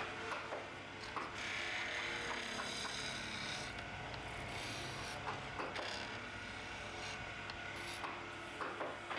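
Hand turning tools cutting a spinning oak spindle on a lathe: a continuous scraping, shaving sound of steel on wood, heaviest about one to three and a half seconds in, with small scattered ticks, over a steady low hum.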